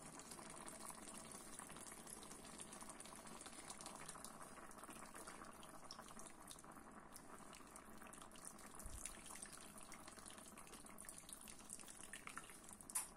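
Water poured from a glass jug into a kazan over a layer of rice: a faint, steady pour.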